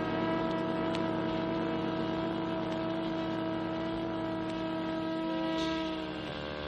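Jazz horn ensemble of brass and saxophones holding a long sustained chord that fades near the end. Faint surface clicks come from the vinyl record.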